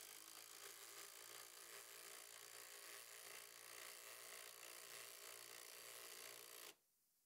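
Two Ridgid Gen5X brushless impact drivers running together, hammering lag bolts down into stacked wood blocks. Both stop suddenly near the end.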